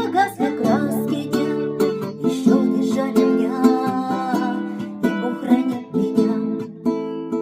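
Acoustic guitar playing the closing bars of a song accompaniment.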